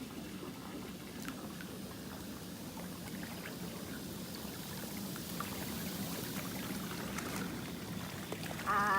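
Pool water jets running, a steady churning and pouring of water. Near the end a wavering pitched sound begins.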